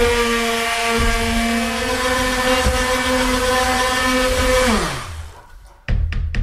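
Handheld electric immersion blender running steadily while mixing a bucket of ceramic glaze slurry, a steady motor whine. Near the end it is switched off and its pitch drops as the motor spins down. Then music with an even beat comes in.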